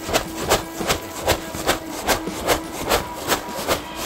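Footsteps on dry dirt and leaf litter at a brisk walking pace, about two and a half steps a second.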